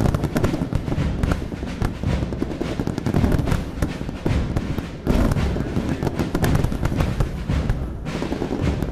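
Fireworks salute: many aerial shells bursting in quick, overlapping succession, a dense run of bangs and crackling with deep booms underneath.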